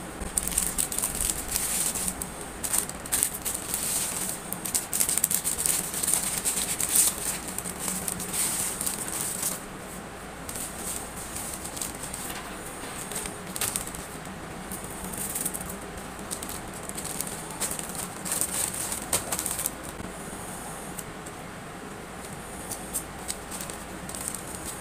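Packing materials being handled: a dense crinkling and rustling with small clicks, busiest for the first ten seconds and then coming in shorter spells, over a steady low room hum.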